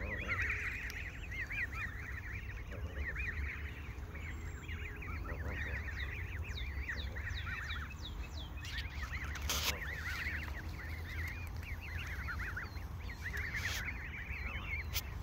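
Canada goose goslings peeping all at once, a continuous chorus of many short, high overlapping calls as they feed. A sharp knock comes about ten seconds in, and a couple of fainter clicks follow near the end.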